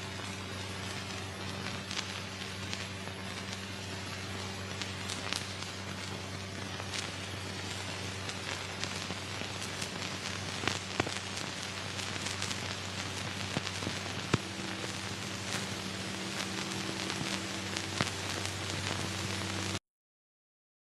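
Old film soundtrack running with no sound on it: a steady hiss and low hum with scattered crackles and pops, cutting off suddenly near the end.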